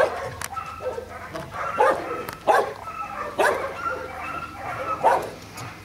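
Puppies yipping and giving short barks as they play-fight, about five sharp high calls spread across a few seconds.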